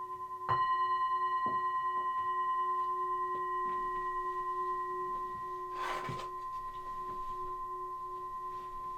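A singing bowl struck about half a second in, ringing on with several pure tones and a slow wavering beat as it gradually fades. A brief hiss of noise comes about six seconds in.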